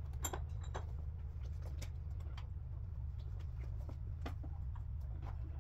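A steady low hum, with scattered light clicks and taps of small engine parts and tools being handled; the two sharpest clicks come within the first second.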